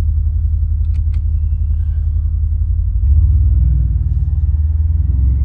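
Mercedes SL550's twin-turbo V8 running with its exhaust cutout valves open: a deep, steady rumble that gets louder about three seconds in.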